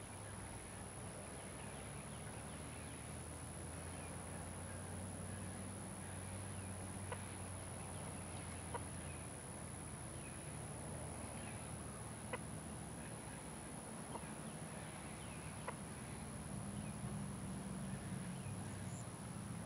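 Quiet outdoor ambience with faint, scattered chicken clucks and a few tiny sharp clicks over a low steady hum.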